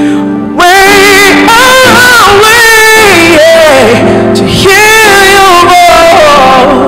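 Recorded gospel worship song: a woman's voice singing long, wavering held notes over sustained keyboard chords, the voice coming in strongly about half a second in.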